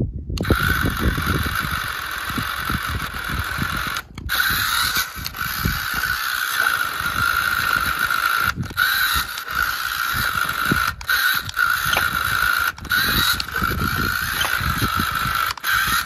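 Remote-control Swaraj 855 model tractor's geared electric motor whining steadily under heavy load while its rear wheels spin and grind in loose sand and gravel, digging in without stalling. The sound briefly cuts out several times.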